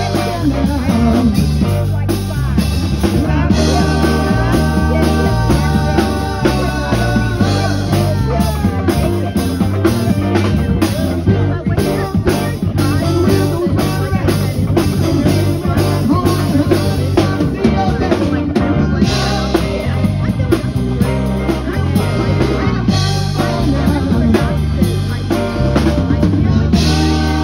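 Live rock band playing: drum kit keeping a steady beat under electric guitar and keyboard.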